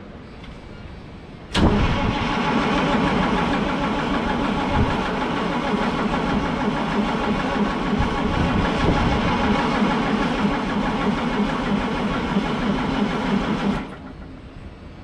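White GMC cabover truck's diesel engine being cranked over by its starter for about twelve seconds. It starts with a sharp click and cuts off suddenly, as the owner tries to start the truck without ether.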